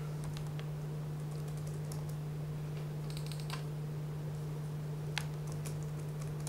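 Laptop keyboard typing: scattered, irregular keystroke clicks. A steady low hum runs underneath throughout.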